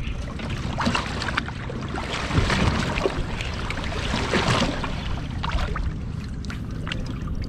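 Wind on the microphone over choppy water, with irregular washes of waves slapping against a fishing boat's hull.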